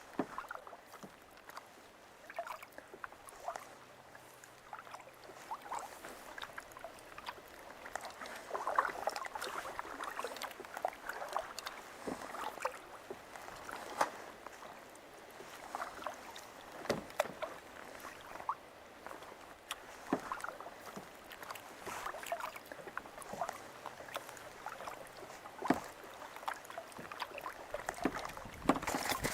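Kayak paddle strokes in water: repeated splashes and drips, spaced irregularly.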